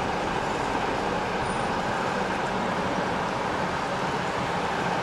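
Steady car noise heard from inside the cabin.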